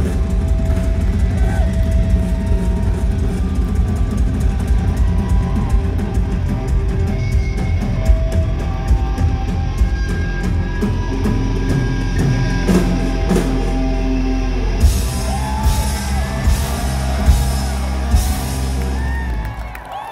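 Live hard-rock band playing loud: distorted electric guitar, bass guitar and drum kit. Near the end a run of cymbal crashes winds the song up, and the music drops away just before the close as the song ends.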